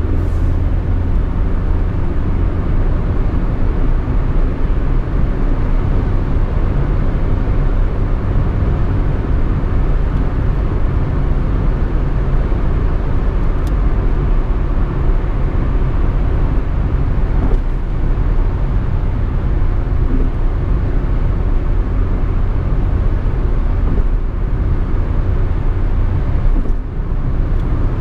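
Peugeot 206 being driven: steady engine and road rumble.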